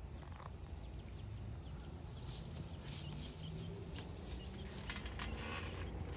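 A hen clucking faintly.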